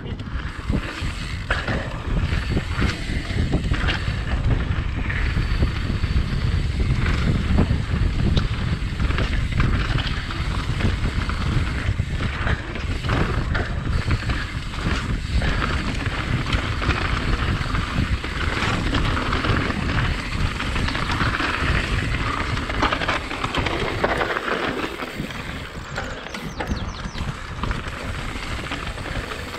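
Mountain bike ridden along a dirt trail: wind buffeting the microphone, with the tyres rolling over rough ground and the bike rattling in many short knocks.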